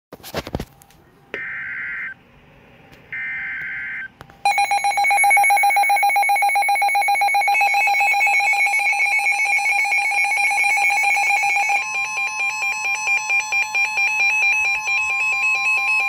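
NOAA weather-alert radios (Midland HH54, Reecom R-1630C) being set off by a Severe Thunderstorm Warning: two short buzzy bursts of the SAME data header, then loud, rapidly pulsing electronic alert beeps from the radios. About twelve seconds in, a steady single tone joins them, the NWS warning alarm tone.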